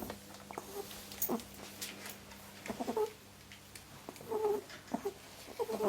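A pet rabbit making a series of short, soft vocal sounds, about half a dozen brief calls with the strongest groups about halfway and near the end.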